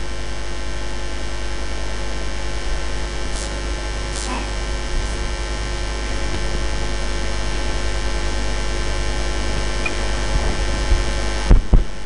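Steady electrical mains hum carried through the mosque's sound system, a low buzz with a stack of steady tones above it. Near the end come a few sharp knocks as the pulpit microphone is handled.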